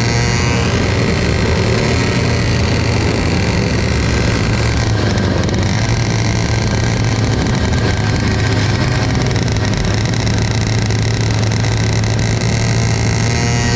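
Racing kart engine running at a steady pitch, heard up close from the kart itself, with wind noise over it. Other karts' engines rise and fall briefly near the start and again near the end.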